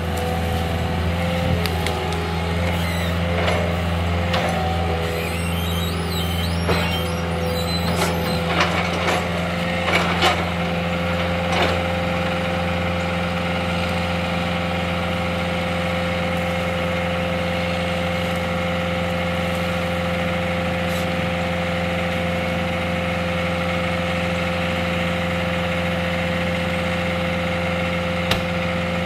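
Heavy machine engine running steadily at an even speed, with a few short knocks and cracks over the first dozen seconds.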